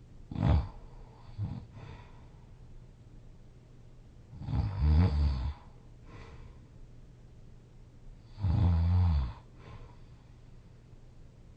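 A person snoring loudly in sleep: a couple of short snorts near the start, then two long snores about four seconds apart.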